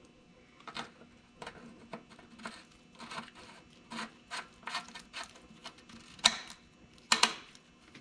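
Irregular small clicks, taps and scraping of the engine's oil filler cap being refitted and the dipstick being handled, with two louder knocks near the end.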